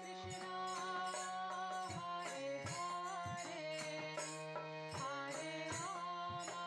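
Quiet background music: a steady low drone under a melody with small gliding bends, with a light drum beat.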